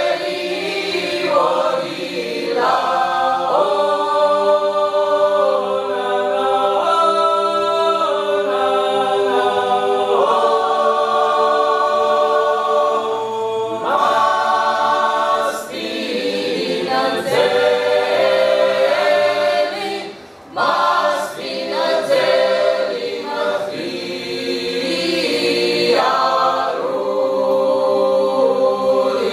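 Mixed choir singing Georgian polyphony a cappella: a table song in held, full chords that shift every second or two. There is one brief breath break about two-thirds of the way through.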